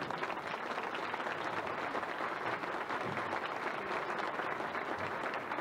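Banquet audience applauding steadily after a speech, many hands clapping at once.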